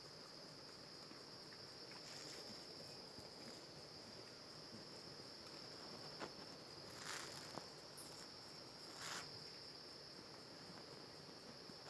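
Faint, steady, high-pitched chorus of crickets, with a couple of soft rustles and ticks about halfway through.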